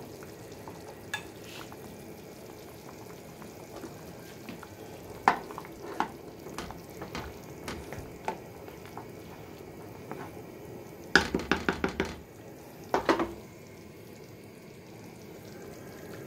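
Meat in tomato sauce simmering in a square pan while a utensil stirs it, with scattered light clicks and scrapes. A little past the middle comes a quick run of about six sharp taps, the loudest sounds, and two more shortly after.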